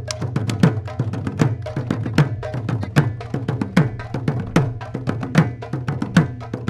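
An ensemble of mridanga (khol) drums playing a fast rhythm together: sharp slaps on the small treble heads mixed with deep bass strokes whose pitch drops after each hit.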